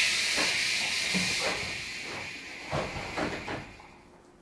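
Loud hiss of compressed air venting from a JR 113 series electric train car's air system, fading away over about four seconds. Several irregular knocks from the wheels and running gear sound under it.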